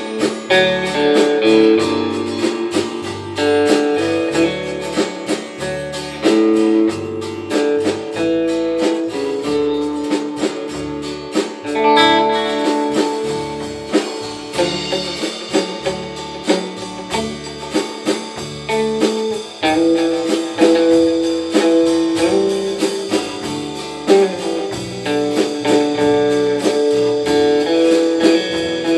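Live instrumental rautalanka guitar band: a lead electric guitar on a Stratocaster-style guitar plays the melody over drums, bass and rhythm guitar, with a steady drum beat throughout.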